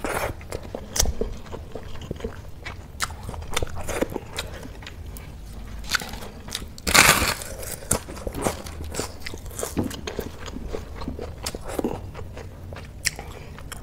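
A person chewing a mouthful of rice and curry eaten by hand, with many small, sharp mouth clicks. About seven seconds in comes a loud crunch of a crisp papad, the loudest sound here.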